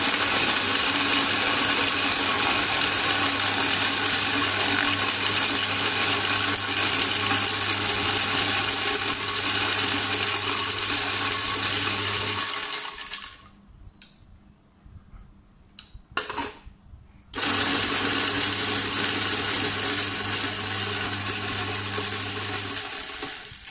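Electric ice crusher running and shaving ice cubes into fine ice, a steady motor hum under a dense grinding rush. It stops about twelve seconds in, a few light knocks follow, then it runs again for about six seconds.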